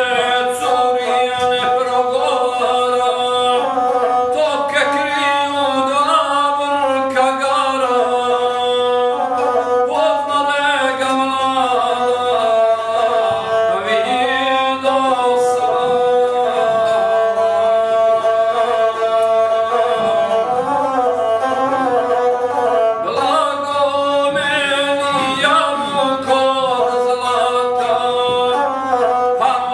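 A gusle, the one-string bowed folk fiddle, played with the bow while a man sings a South Slavic epic song to it in the guslar style. Voice and instrument move together through wavering turns and several long held notes.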